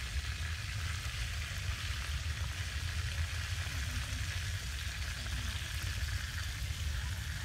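Chicken pieces sizzling steadily in hot oil in a metal wok over a wood fire as they are stirred, over a steady low rumble.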